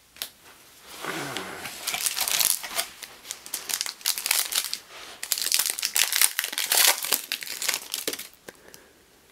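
Foil wrapper of a Donruss trading-card pack being torn open and crumpled by hand. It is a run of crackling, crinkling rustles that starts about a second in and stops about a second before the end.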